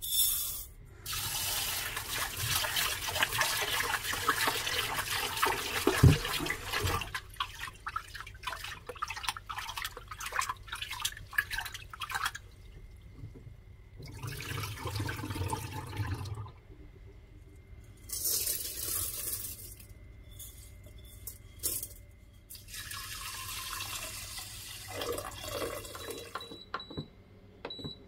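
Rice being washed in a glass bowl in a stainless steel sink: water runs and splashes in several bursts as the rice is swished and the cloudy rinse water is poured off. Near the end come a couple of short electronic beeps from a rice cooker's buttons.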